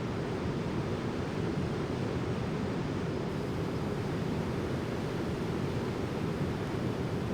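Steady rushing noise of an aircraft in flight, heard from inside the cabin: an even, low roar with no breaks or changes.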